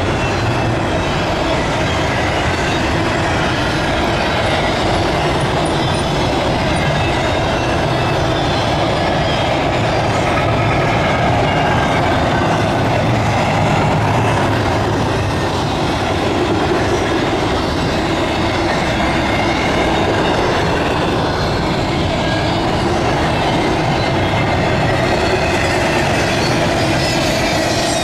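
Double-stack intermodal freight train passing close by at speed: the steady, loud noise of its well cars' steel wheels running over the rails.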